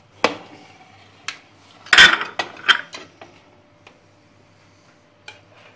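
Serving utensil clinking and scraping against a metal baking tray as cookies are lifted out. There are several sharp knocks, with the loudest cluster about two seconds in and one last knock near the end.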